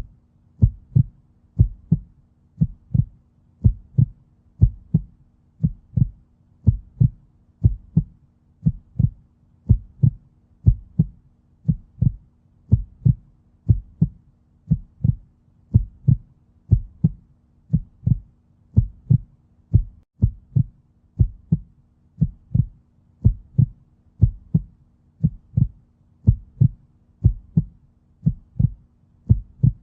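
Heartbeat, a steady double beat (lub-dub) about once a second, the thumps deep and even in strength.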